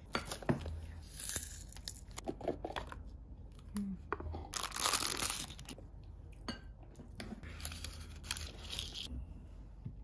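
Rustling and crinkling of a ribbon, paper and a cardboard gift box as the box is untied and opened, in three bouts, the loudest about five seconds in, with small taps and clicks between.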